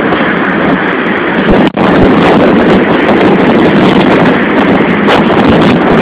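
Strong wind rushing over the microphone with road traffic alongside, a loud steady roar; the sound cuts out for an instant a little under two seconds in.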